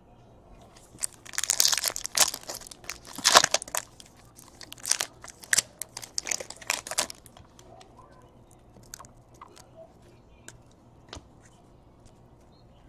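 Foil trading-card pack wrapper crinkling and tearing open in dense bursts for several seconds, then a few scattered light clicks of the cards being handled.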